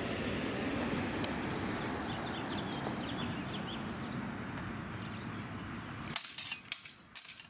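Steady rushing wind noise on the microphone. About six seconds in it drops away, and a quick run of sharp metallic clacks follows, some with a short ring: steel longsword blades striking each other during the exchange.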